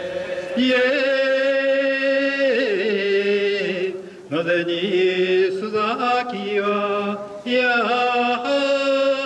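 Men's voices chanting a Shinto ritual song in long, drawn-out held notes that step slowly in pitch. The chant breaks off for breath twice, about four seconds in and again near the end.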